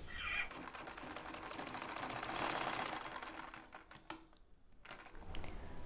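Domestic sewing machine stitching a seam, a fast, even run of needle clicks for about three seconds, then a few separate clicks as it stops.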